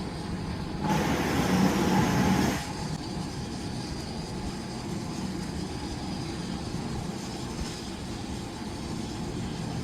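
Steady machinery hum, with a louder rushing noise about a second in that lasts under two seconds and then drops back.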